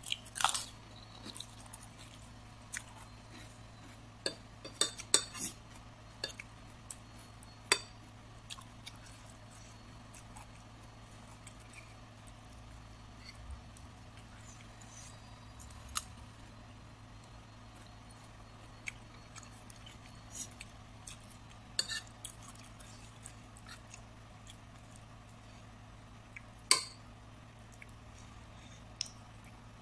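A metal spoon clinking and scraping on a ceramic plate in scattered sharp clicks, with chewing between them, over a low steady hum. The loudest clink comes near the end.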